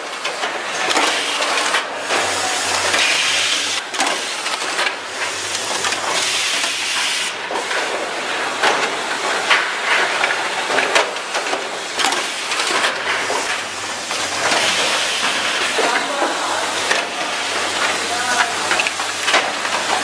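Power-strip automatic assembly machine running: a steady hiss with frequent short clicks and clacks from its moving parts.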